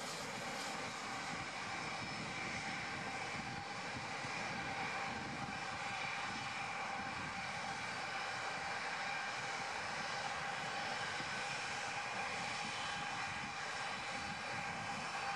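Boeing 747-400's jet engines at low taxi power as the jumbo rolls past close by: a steady whine of several held tones over a broad, even rush.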